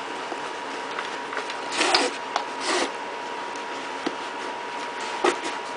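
Canvas web gear being handled: a suspender strap with a metal snap hook fed through a pack's fittings, giving two short rustling scrapes about two seconds in and a few light clicks, over a faint steady hum.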